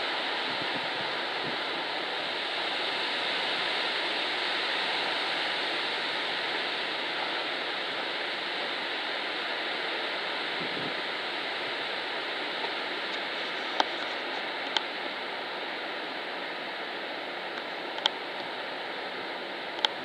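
Wind rushing steadily through the leafy crowns of deciduous trees, a continuous surf-like hiss of moving foliage. A few short clicks come in the second half.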